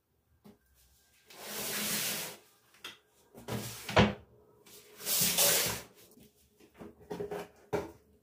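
Cleaning and handling noises: two hissing bursts of about a second each, a sharp knock between them, and a few light clicks near the end.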